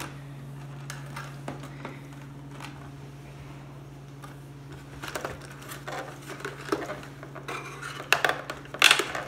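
A plastic toy robot and its cardboard packaging being handled and pulled apart: scattered knocks, clatters and rustles that start about halfway through and are loudest near the end, over a steady low hum.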